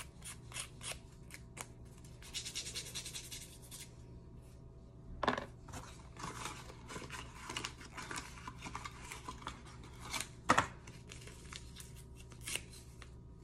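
Small cheap nail file scraping across a fingernail in many short, quick strokes, with a dense run of rasping about two seconds in. Two louder knocks stand out, a little after five seconds and again near ten and a half.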